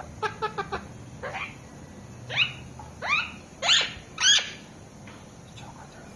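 Alexandrine parakeet (pahadi tota) calling: a quick run of short chirps, then four loud arched calls about two-thirds of a second apart, the last two loudest.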